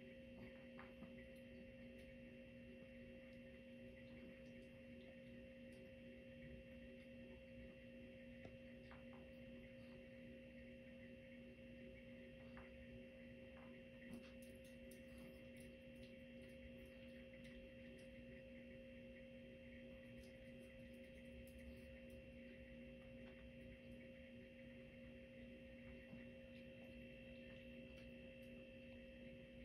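Near silence: a steady faint hum of several held tones, with a few faint scattered clicks from a small dog eating dry kibble at a metal bowl.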